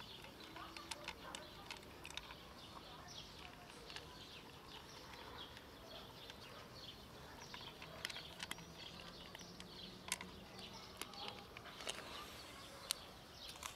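Kittens eating dry cat food, a quiet run of small, sharp crunches and clicks scattered throughout.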